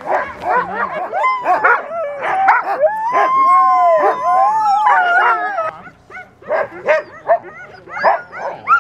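A pack of sled dogs barking and yipping over one another. In the middle, several dogs howl together for about three seconds, then the barking picks up again.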